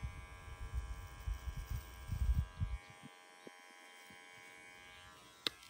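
Electric hair clippers buzzing steadily while cutting short hair, with low uneven rumbling during the first three seconds and a sharp click near the end.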